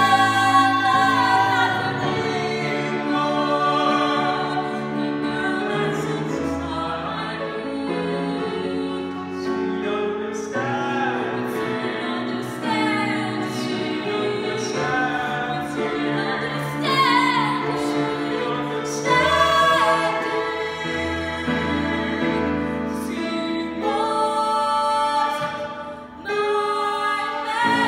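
A woman and a man singing a musical-theatre duet into microphones over accompaniment, the voices sustained and sliding between notes, with a short drop in level about 26 seconds in.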